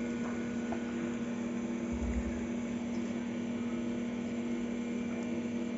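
Steady machine hum: one unchanging low tone with a fainter higher one above it, over a light hiss, and a brief low bump about two seconds in.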